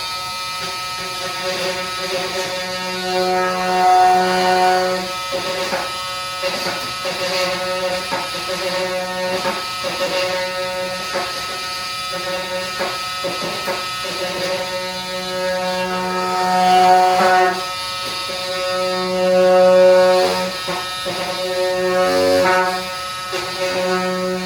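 A power tool motor running steadily with a buzzing, horn-like tone, its pitch holding while the strength of its overtones shifts every few seconds as it works against the material, with irregular knocks and scrapes throughout.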